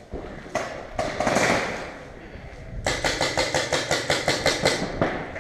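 Paintball marker firing a rapid string of shots, about six a second, for some two and a half seconds starting about three seconds in. A loud scuffing rush about a second in comes before it.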